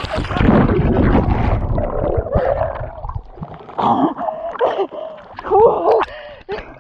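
Heavy splashing and churning of lake water as an inflatable packraft floor tips over with a person on it, loud for about the first three seconds and close to the camera. After that, voices call out over lighter water sounds.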